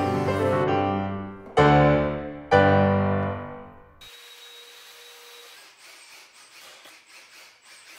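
Piano background music ending in two loud chords that fade away. About four seconds in, a faint cordless drill whines briefly as it drives a screw into the wooden frame, followed by light clicking.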